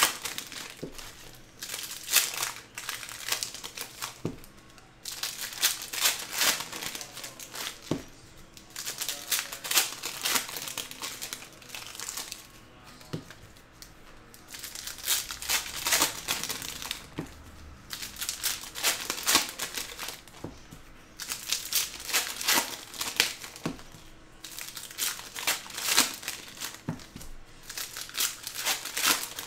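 Foil trading-card pack wrappers crinkling and tearing as packs are opened, with cards handled and stacked. The crackling comes in repeated bursts a few seconds apart.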